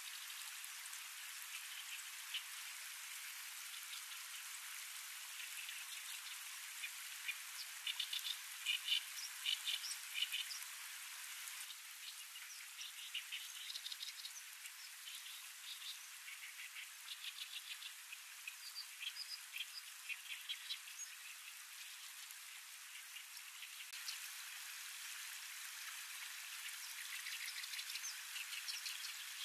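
A steady outdoor hiss with several runs of short, rapidly repeated chirping calls from small animals, the loudest about a third of the way in.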